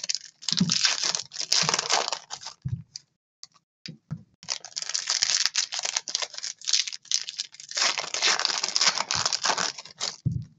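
Foil wrapper of a Panini Prizm trading-card pack being torn open and crinkled by hand. The crackling comes in three stretches, with a pause of about two seconds after the first that holds only a few light clicks.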